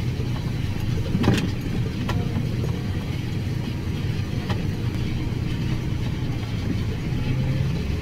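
Tractor engine running steadily, heard from inside the cab as a low drone, with a sharp click about a second in and a couple of fainter ticks after it.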